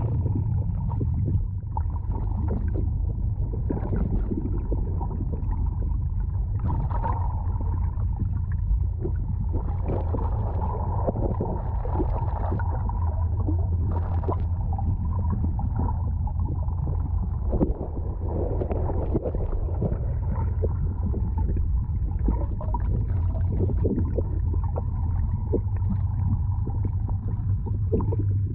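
Fishing boat's engine running steadily with a low hum, with irregular knocks and clatter on top.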